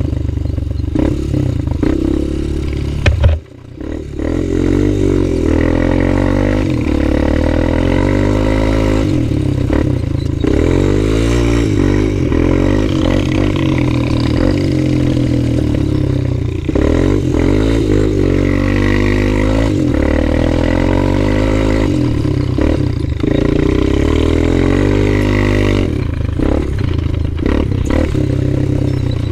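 Honda TRX250EX Sportrax quad's single-cylinder four-stroke engine being ridden hard, its pitch repeatedly rising and falling as the throttle is worked. A sharp knock about three seconds in, after which the engine sound briefly drops away before picking up again.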